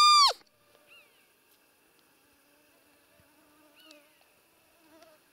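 A roe deer call (hunter's decoy) blown once: a loud, short high squeak held level, then falling off at the end, imitating a doe's call to draw a rutting buck. After it, faint short descending chirps come twice over a faint steady hum.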